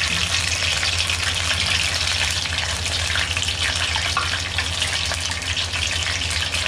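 Battered onion rings deep-frying in hot oil in a wok, a steady dense crackling sizzle, with a low steady hum underneath.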